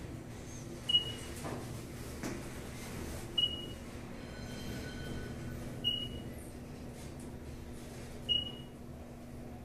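Glass elevator's short high beep sounding four times, evenly about two and a half seconds apart, over a steady low hum: the floor-passing signal as the car travels between floors.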